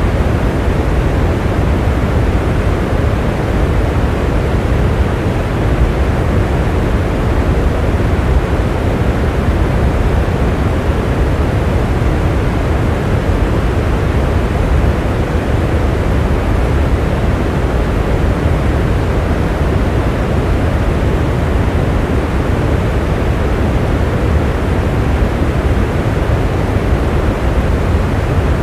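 Steady rain: a constant, even rushing weighted toward the low end, with no distinct drops or thunder.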